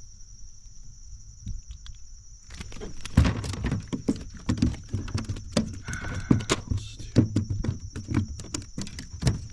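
A steady high insect drone, then from about two and a half seconds in, a run of irregular knocks and thumps on a kayak as a small redbreast sunfish is handled and unhooked.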